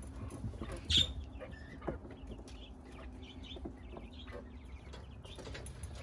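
Domestic quail heard faintly in their wooden coop: small scattered calls over a low rumble of handling noise. A sharp knock comes about a second in and a softer one near two seconds.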